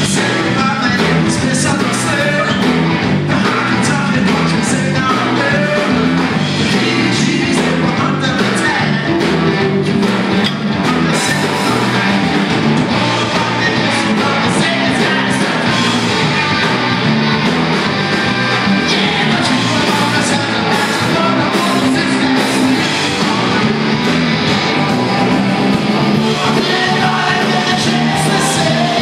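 Rock band playing live and loud: electric guitars over a drum kit, going on without a break.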